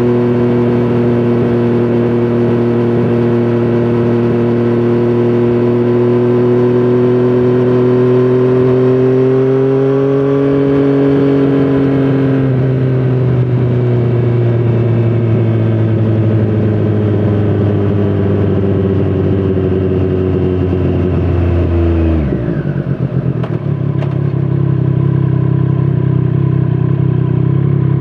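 2017 Triumph Street Triple 765 RS inline-three engine running through a Scorpion Serket Taper carbon exhaust, held at a steady cruise, rising a little and then slowly easing off. A little after twenty seconds the revs drop sharply, and it settles into a steady lower note.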